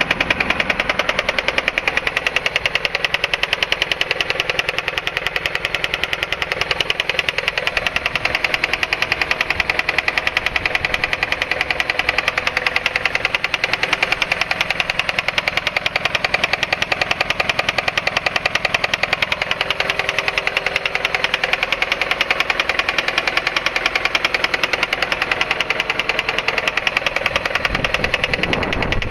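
Honda Accord 2.3-litre four-cylinder engine running with a steady, rapid, even knocking from inside the engine.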